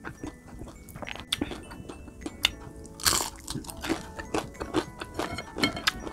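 Chewing and crunching of crispy fried food: a string of sharp crunches, with a louder, longer crunch about three seconds in.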